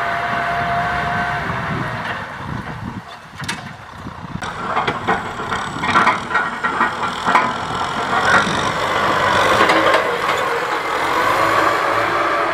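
Kubota M6040SU tractor's diesel engine running under plowing work. It dips quieter about three seconds in, then grows louder again with a run of knocks and rattles over the engine.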